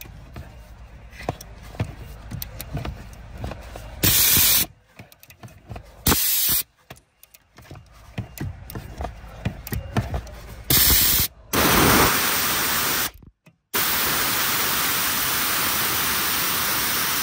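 Small clicks and taps of hand tools on the steering column joint bolt, then loud bursts of steady hiss that start and stop abruptly, turning into a continuous hiss near the end.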